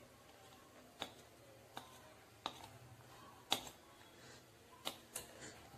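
A handful of faint, irregular light clicks as a wire whisk knocks against the mixing bowl while thick cake batter is poured and scraped out into a steel pan.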